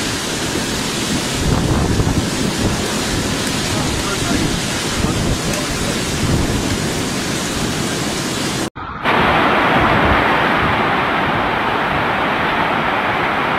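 Violent storm: strong gusting wind and heavy driving rain, with wind buffeting the microphone. About two-thirds of the way through the sound drops out for an instant and comes back as a steadier, hissing downpour.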